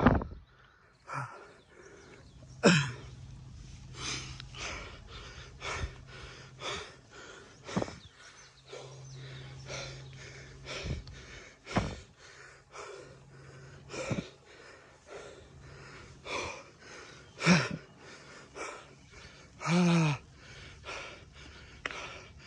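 A cyclist panting hard from the effort of an uphill climb: quick, loud breaths, roughly one every second, with a short voiced groan near the end.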